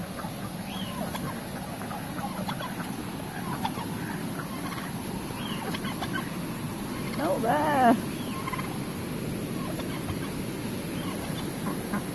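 Domestic tom turkey gobbling once, a loud rapid warbling call about seven seconds in. Scattered faint short calls from the flock sound around it.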